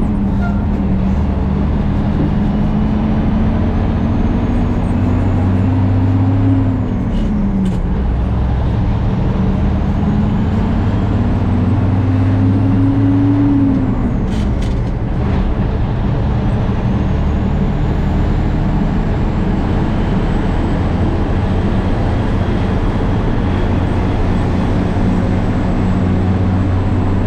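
Truck engine under way, pulling harder with its pitch climbing and then dropping at two upshifts, before settling to a steady cruise.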